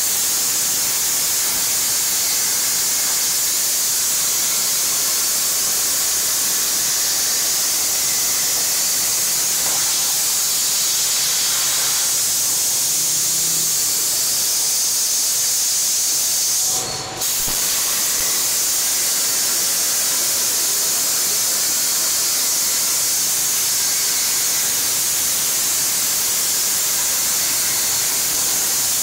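65 A air plasma cutter torch on a CNC table cutting through 8 mm plate: a loud, steady hiss of arc and air. A little past halfway it briefly cuts out and then carries on.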